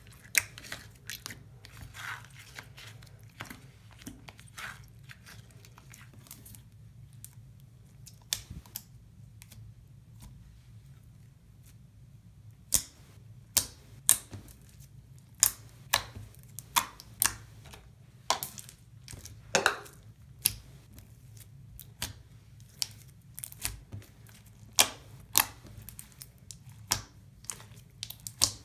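Clear glitter slime, firmed up with borax, being pressed and stretched by hand. It gives sharp, irregular clicks and pops, sparse at first and coming faster and louder in the second half.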